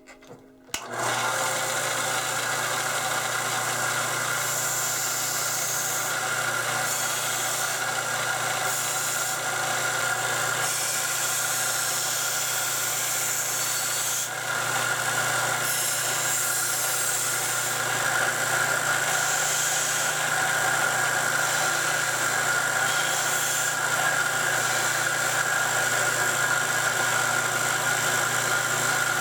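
Vintage Sears Craftsman 351.22632 combination belt and disc sander switched on about a second in, its electric motor then running steadily with a constant hum and whine; a little noisy but operating well.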